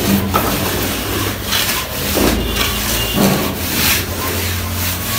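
A plastering float rubbed back and forth over fresh cement plaster on a concrete beam, smoothing and cleaning the surface. It makes a series of rasping strokes, roughly one a second.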